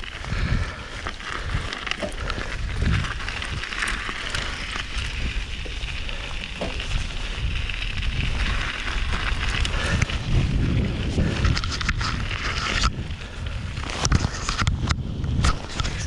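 Nicolai Geometron G1 mountain bike riding down a snowy trail: tyre noise over the ground, with the bike clicking and rattling over bumps and wind rumbling on the camera microphone.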